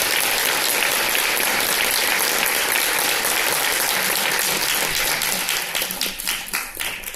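Audience applauding, dense at first, then thinning to scattered claps and fading near the end.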